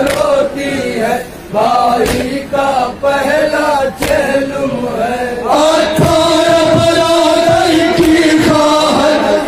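Men chanting a Shia noha, a Muharram lament in Urdu, in unison, with hand strikes on the chest (matam) about once a second. About halfway through, one long line is drawn out on a held note.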